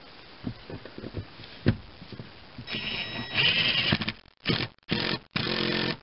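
Cordless power driver with a Torx bit running in a seat-belt anchor bolt: a few light knocks as the bolt is set, then the motor spins with a whine, and near the end three short bursts as the bolt is tightened down.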